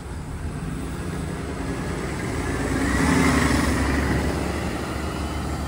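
Hybrid city bus pulling away from the stop, its engine noise swelling to a peak about three seconds in, with a faint rising whine, then easing as it moves off.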